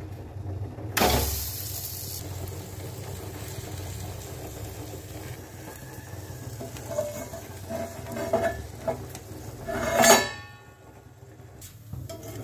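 A bread slice set down in a pan with a short sizzle about a second in, then a low steady frying noise. About ten seconds in, a steel plate is set over the pan as a lid with a loud metallic clank that rings briefly.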